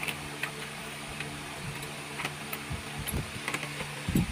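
Light metallic clicks and taps of a wrench and hand tools working on the housing of a jacuzzi blower motor being reassembled, over a steady low hum. A few dull knocks come near the end.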